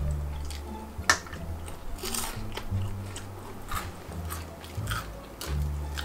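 Close mouth sounds of chewing and biting grilled seafood, with short sharp clicks of a fork and fingers on plates, the loudest about a second in, over background music with a low bass line.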